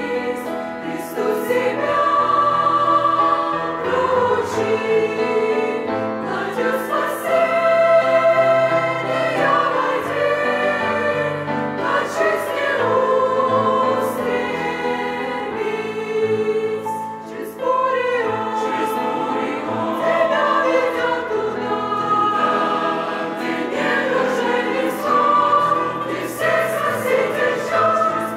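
Church choir singing a Russian-language hymn, with sustained chords moving phrase by phrase.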